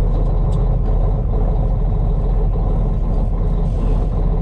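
Semi-truck diesel engine idling steadily, heard from inside the cab. It has just been started and, in the driver's words, is not too happy about it.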